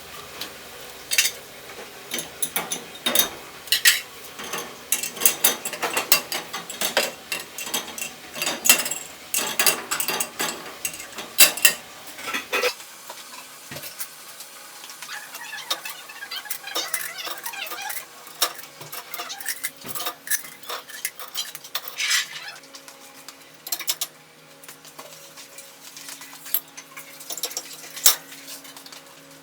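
Cutlery and dishes clinking and clattering as they are handled, a long run of sharp clicks that is busiest in the first half. About halfway through, a low steady hum comes in underneath.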